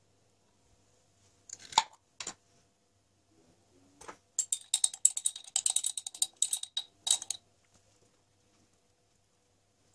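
A glass jar's screw lid twisted off with a couple of sharp clicks, then a knock and a quick run of metal-on-glass clinks and scrapes as a teaspoon scoops apricot jam out of the jar.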